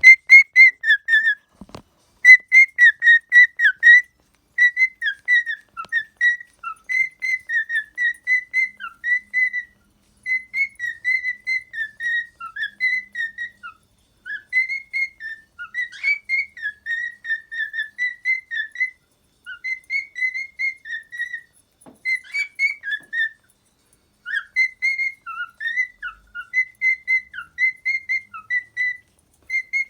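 Cockatiel whistling its song: quick runs of chirpy whistled notes, in phrases of a few seconds broken by short pauses.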